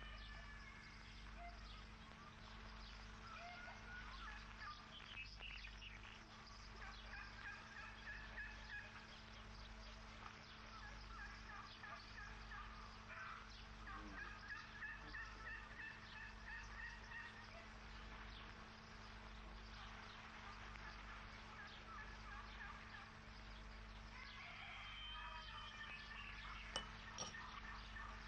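Faint calls of farmyard fowl: short warbling calls that come again and again, over a steady low hum.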